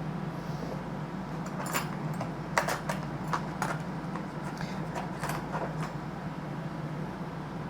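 Scattered small clicks and taps of plastic being handled and pried, as the plastic shell of an HO-scale model locomotive is worked loose, over a steady low hum.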